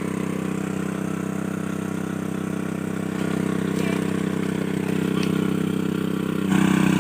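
Engine of a water pump running steadily at a constant speed, pumping water out of a pond. It gets louder near the end.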